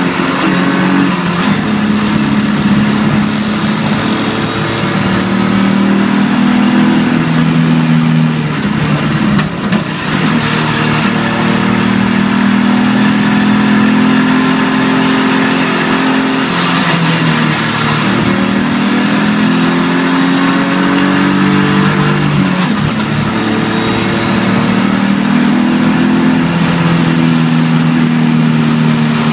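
BMW E46 325ti Compact's 2.5-litre straight-six heard from inside the cabin, its revs climbing and dropping several times as the car accelerates, shifts and lifts for corners. A steady hiss of tyres on wet tarmac runs underneath.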